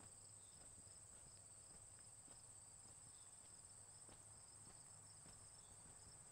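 Faint insect chorus: a steady high trill with a second, pulsing trill just below it.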